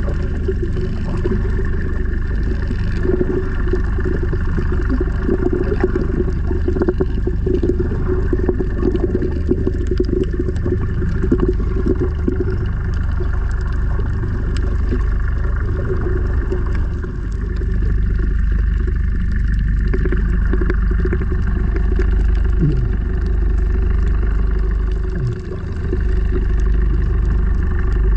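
Muffled underwater rumble and steady hum picked up by a submerged camera, with scattered crackles in the first half.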